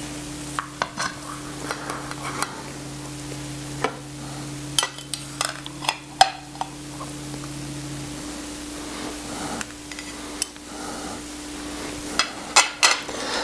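Table knife and fork scraping and clinking on a plate while cutting a piece of frittata, in scattered short clicks and scrapes. A steady low hum runs beneath, part of it dropping out about eight seconds in.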